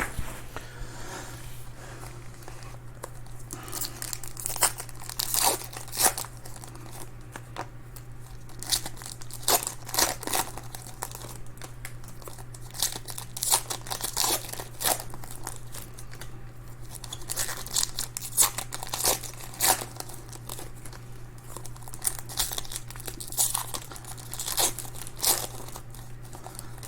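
Plastic wrapping crinkling and tearing in irregular crackles as card packaging is handled and opened, over a steady low hum.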